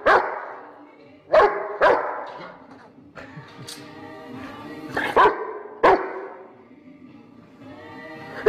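Rottweiler barking in short, loud single barks, about seven of them, some in quick pairs half a second apart, over background music.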